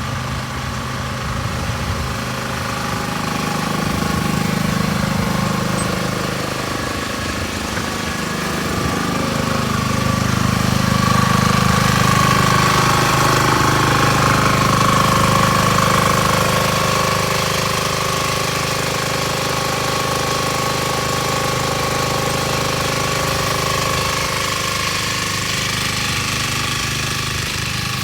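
An engine-driven machine running steadily for the whole stretch, with a thin steady whine over a low rumble that swells and eases and grows louder around the middle.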